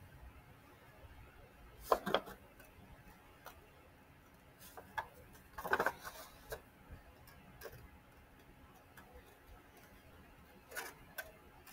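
Scissors making short, irregular snips through a sheet of painted paper, with soft paper handling as the sheet is turned between cuts.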